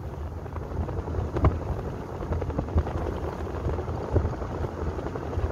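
Wind and road noise of a moving vehicle heard from inside, a steady low rumble with a few knocks and jolts from the road.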